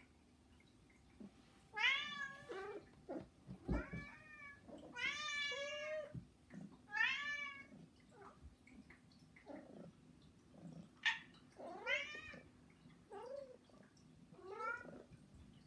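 Domestic cats meowing at the person feeding them, a string of about eight demanding meows, most of them arching up and falling in pitch, one of them long and drawn out; these are begging-for-food cries.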